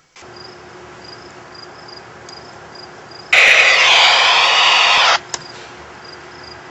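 Crickets chirping steadily, with short high chirps repeating at an even pace. About three seconds in, a loud rushing noise cuts in suddenly, lasts about two seconds and stops abruptly, followed by a single click.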